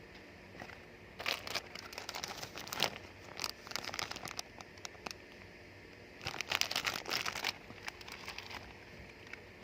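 Packaging crinkling and rustling as it is handled, in several bursts of a second or two each, with quieter gaps between them.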